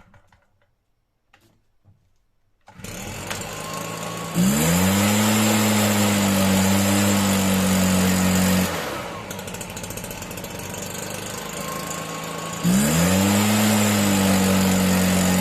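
Stihl BR340 backpack blower's two-stroke engine idling, then revved up to a high, steady full-throttle pitch, dropped back to idle, and revved up again near the end. It starts after a brief silence.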